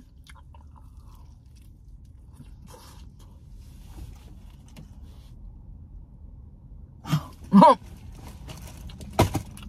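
A person chewing fried chicken quietly with the mouth closed, with faint wet clicks. About seven and a half seconds in comes a short hummed 'mmm' of enjoyment, and near the end a single sharp knock.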